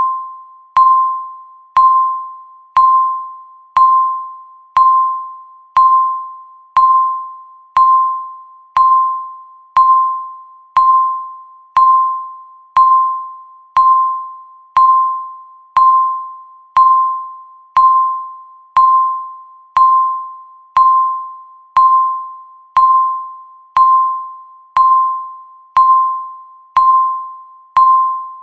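Electronic countdown-timer beep sounding once every second: a single mid-pitched chime-like tone that starts sharply and fades away before the next, every beep the same.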